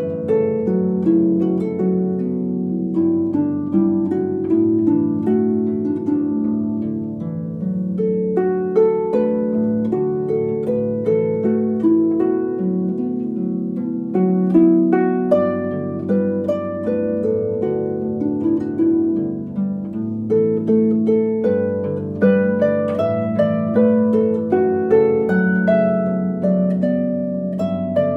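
Background music of plucked strings, a harp-like melody of many short notes.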